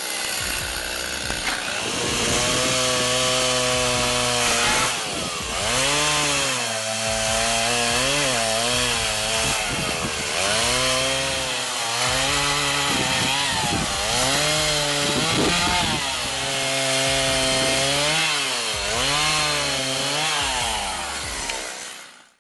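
Chainsaw running and cutting through a bundle of branches and small logs, its pitch dropping repeatedly as the chain bogs in each cut and rising again as it frees up. The sound fades out near the end.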